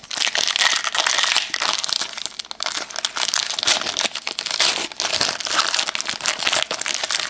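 Crinkly foil wrapper of a trading-card pack being handled and torn open, a dense rustle of many quick sharp crackles.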